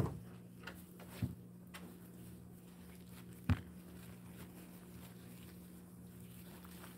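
Puppy moving about on a hard floor: a few sharp knocks, about a second in and again midway, and light taps of paws and claws, over a steady low hum.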